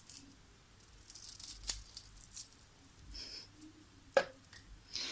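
Packaging and kit parts being handled: faint, intermittent crinkling and rustling with a few sharp clicks.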